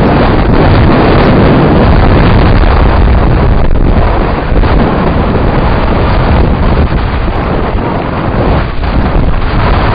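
Heavy wind noise on the microphone of a camera carried on a mountain bike going fast downhill, mixed with the jolting rumble of the rough dirt track, loud and continuous, easing a little about four seconds in.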